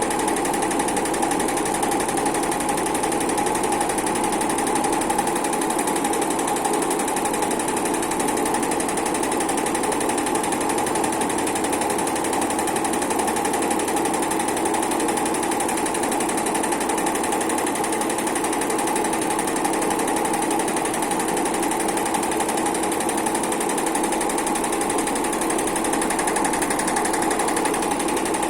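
Automatic heating-wire sewing machine running steadily, its needle stitching at a fast, even rate.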